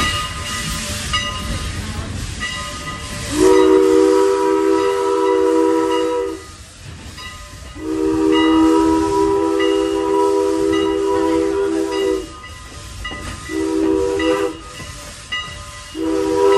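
Steam locomotive whistle sounding several notes at once, blown long, long, short, then long: the grade-crossing signal. Under it runs the low noise of the moving train.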